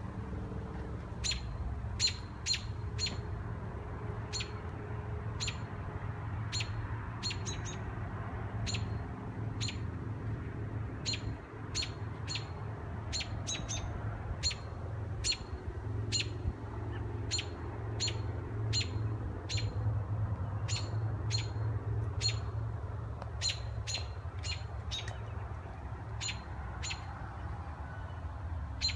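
Baby birds chirping: short, sharp, high calls repeated irregularly, about one or two a second, over a steady low hum.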